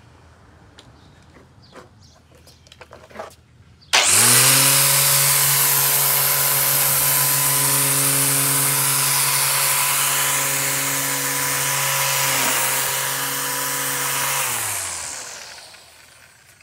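Black+Decker electric string trimmer switched on about four seconds in, its motor spinning straight up to a steady high whine. Near the end it is switched off and winds down with falling pitch. A few light handling clicks come before it starts.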